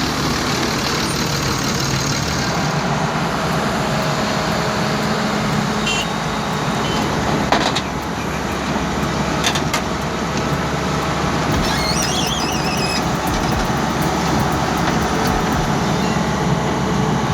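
A heavy diesel engine running steadily, with a sharp knock about seven and a half seconds in and a brief high squeal around twelve seconds in.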